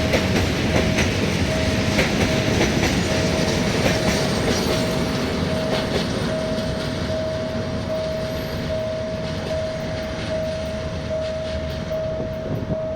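Freight train wagons rolling past, wheels clattering over the rail joints, with a steady whine held on one pitch throughout; the noise eases slightly near the end.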